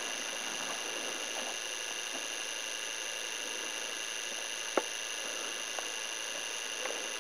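Steady hiss with a faint high-pitched whine from the recording itself, and one sharp click a little under five seconds in.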